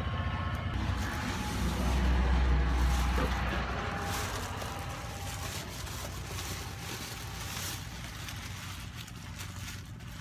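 A low, steady engine hum that swells about two seconds in and then fades away. In the second half, plastic bags crinkle as they are handled and unwrapped.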